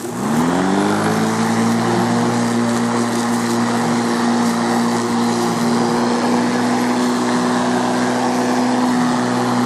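Sun Joe corded electric lawn mower's motor starting up: a whine rises in pitch over about the first second as it spins up to speed, then it runs at a steady pitch.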